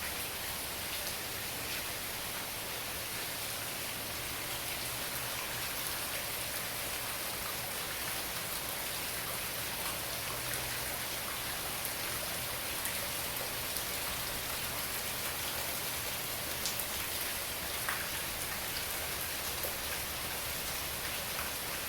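Heavy tropical-storm rain falling steadily, pattering on the surfaces around the screened pool area, with the odd louder drop.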